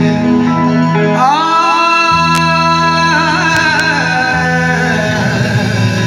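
Live rock band playing, with guitar and bass under a male singer who slides up into a long held note about a second in.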